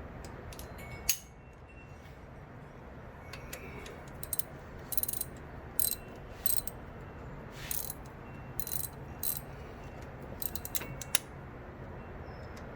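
Ratchet wrench clicking in short bursts, with sharp metal clicks and clinks from work on a VG33 engine, over a steady low hum.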